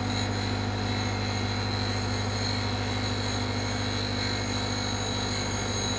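Jones & Shipman 540 surface grinder running steadily, its spindle motor giving a low hum and a thin high whine as the grinding wheel spins over a single-point diamond dresser while it is being dressed true.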